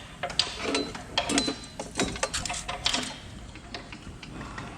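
Irregular clicks, knocks and light clanks of metal equipment being handled and adjusted, with no motor running.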